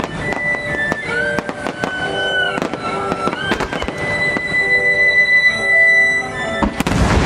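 Aerial firework shells bursting and crackling in quick succession, with a denser, louder burst near the end. Held tones that glide at their ends run over the bangs, fitting music played along with the show.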